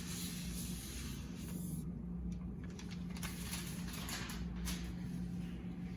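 Soft hissing rustle of a new MacBook Pro and its packaging being handled during unboxing, followed by a few light clicks and taps, over a faint steady hum.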